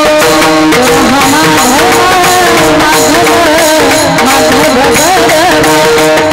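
Kirtan music: a harmonium holds steady notes under a wavering, gliding melody line, with tabla and a light high-pitched beat about twice a second keeping time.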